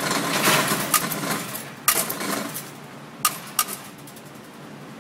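A few sharp cracks of gunfire from the range, irregularly spaced, the last two close together about three and a half seconds in, over a hiss that fades partway through.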